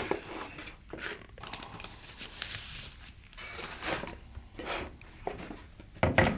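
Packaging rustling and crinkling as a device in a foam sleeve is pulled from a cardboard box, with a louder thump near the end.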